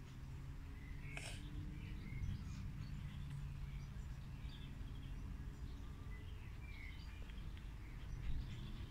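Outdoor garden ambience: a steady low rumble with faint, scattered bird chirps.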